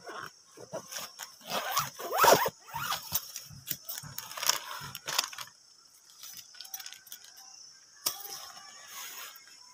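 Nylon stuff sack rustling and crinkling in irregular bursts as packed camping fabric is pulled out of it by hand, loudest in the first half, with quieter rustles and a sharper scrape about eight seconds in.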